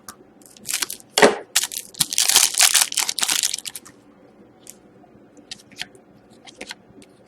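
Trading cards being handled: a few short rustles in the first half, then light ticks and taps.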